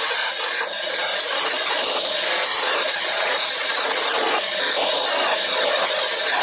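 STD-120 wood lathe running while a hand chisel cuts a spinning wooden blank: a steady scraping cut as shavings come off, with a brief dip about half a second in.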